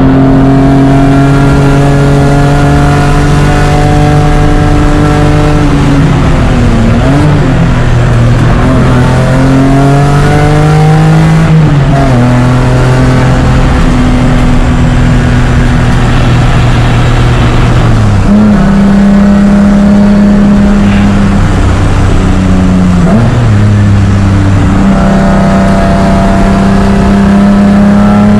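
BMW E36 race car engine at high revs, heard on board while lapping. It holds a steady pitch for several seconds at a time, with dips and sudden jumps in pitch about six seconds in, around twelve, eighteen and twenty-three seconds in, as gears are changed through corners, then climbs again under acceleration near the end.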